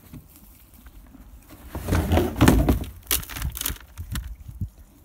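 A horse eating grain feed from a plastic feed bucket: quiet rustling at first, then a loud rush of noise about two seconds in, followed by a run of sharp clicks.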